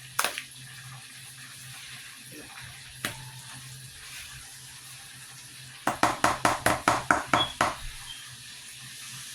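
Chicken frying in hot oil, a steady sizzle. A couple of single clicks, then a quick run of about ten knocks, roughly six a second, about six seconds in, like a utensil tapping against the pan.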